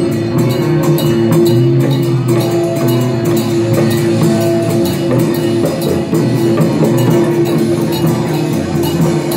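Loud temple-procession music: fast, steady percussion strokes, cymbal- or gong-like, over a held melodic tone.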